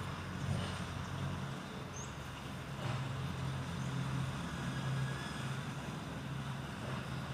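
An engine running steadily with a low hum, with a few faint, short high chirps over it.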